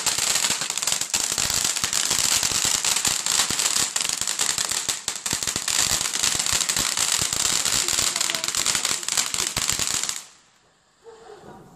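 Firework crackling: a dense, rapid stream of crackles and pops with a hiss, cutting off suddenly about ten seconds in.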